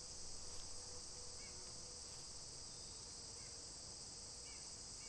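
Steady, faint, high-pitched drone of an insect chorus, with a few faint short chirps over it.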